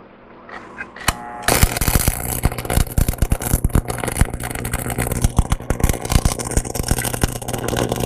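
Stick-welding arc from a buzz-box stick welder, crackling and sizzling irregularly as a bead is run on steel, over a steady low hum. The arc strikes with a sharp click about a second in and runs continuously from about a second and a half in.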